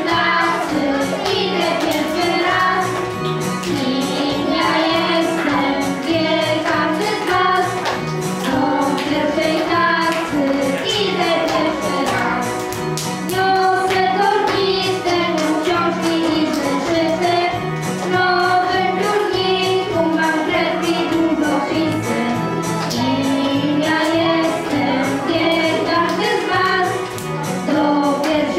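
Young children singing a song together into a microphone, with instrumental accompaniment.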